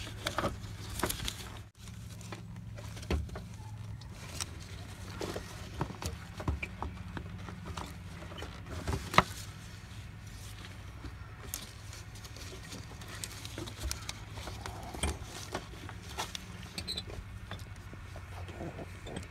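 Scattered clicks and knocks of hands handling parts in a car's engine bay, with one sharper knock about nine seconds in, over a steady low hum.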